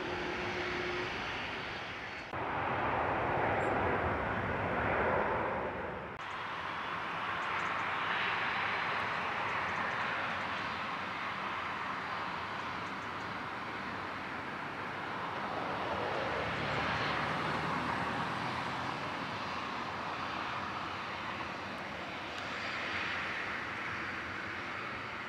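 Airbus A320-214 jet engines heard from beside the runway during approach and landing: a steady rushing jet noise that swells and fades several times, with abrupt changes in level about two and six seconds in.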